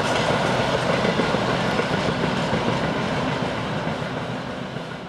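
Freight train of empty car-carrier wagons running past on the track, the noise dying away over the last second or so as the end of the train draws off.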